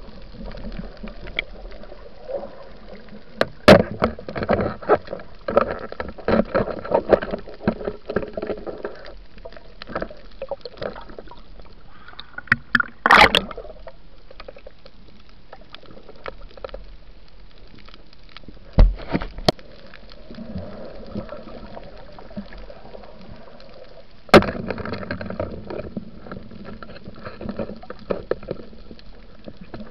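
Underwater sound picked up by a diver's camera on a night spearfishing dive: muffled water movement with several sharp knocks and clicks, the strongest about 13 and 24 seconds in.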